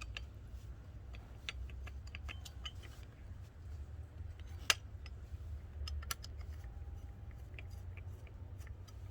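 Small metallic clicks and light scrapes from working loose steel wire-brush bristles caught on a cast-iron pot lid, with one sharper click about halfway through, over a low steady hum.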